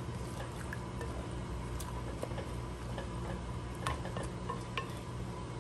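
A spatula stirring wet chopped vegetables in a glass pot, giving a few light clicks and scrapes against the glass, over a steady low hum.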